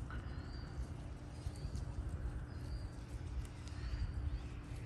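A small bird chirping short high notes about once a second, over a steady low outdoor rumble and a faint hum.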